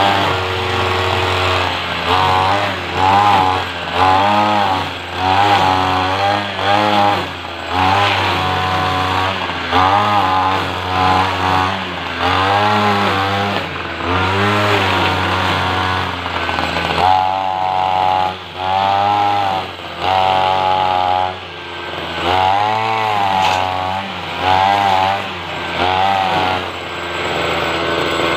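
Petrol whipper snipper (string trimmer) engine revved up and down over and over while trimming lawn edges, its pitch climbing and falling every second or two with brief drops back toward idle.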